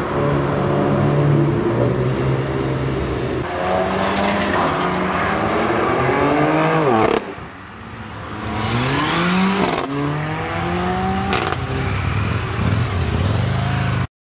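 BMW M4's twin-turbo straight-six through a full Akrapovič exhaust, revving up and down repeatedly under acceleration. About seven seconds in the pitch falls steeply and the sound dips, then it climbs again; it cuts off just before the end.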